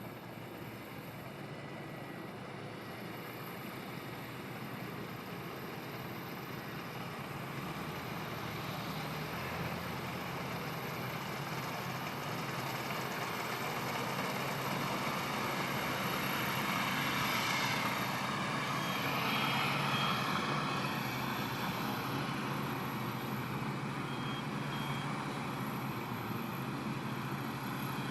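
Combine harvester engine running steadily and growing louder midway as the machine comes closer, with short high warning beeps a couple of times.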